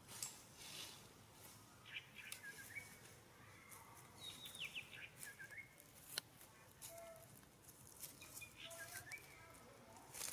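A bird singing faintly in the trees, a short falling chirpy phrase repeated every two to three seconds, with light clicks and rustles in between.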